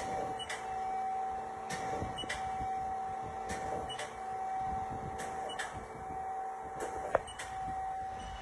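Haas SL40T CNC lathe running: a steady whine with a lower hum beneath it. Sharp ticks recur about once a second, with a louder click about seven seconds in.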